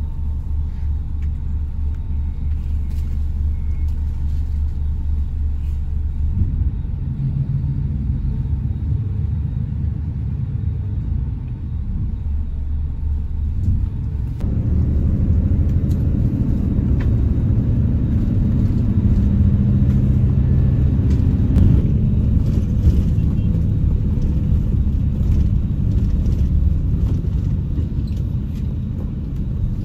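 Bus on the move: a steady low engine and road rumble that gets louder about fifteen seconds in.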